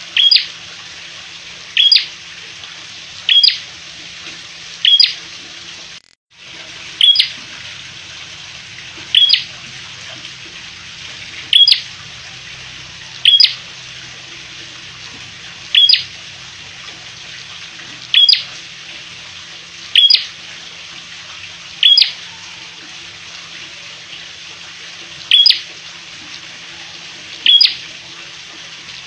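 A caged prenjak merah (red-headed tailorbird) giving a single sharp, high chip call about every two seconds, over a steady background hiss. There is a brief gap in the recording about six seconds in.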